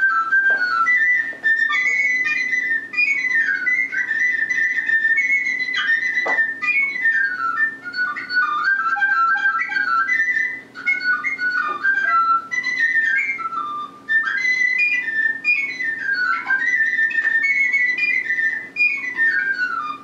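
Cylindrical flute playing a slow, wandering melody of high notes, often sliding down from one note to the next, with two short pauses for breath, heard through a video call's audio.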